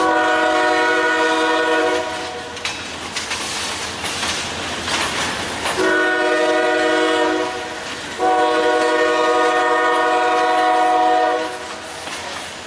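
Diesel locomotive multi-chime air horn sounding three blasts: a long one at the start, a shorter one about six seconds in, and a longer one just after.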